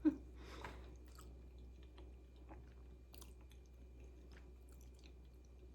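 A person chewing food close to the microphone: faint, irregular wet clicks, over a low steady hum.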